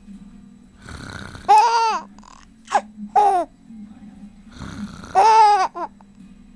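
An adult's fake snore, a rough, noisy breath, comes twice, and each one is followed at once by a baby's high-pitched laughing squeals.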